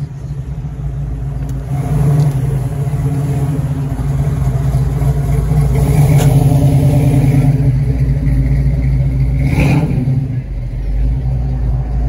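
Classic car's engine running loud and close, with a deep rumble that swells from about two seconds in and eases off near the end.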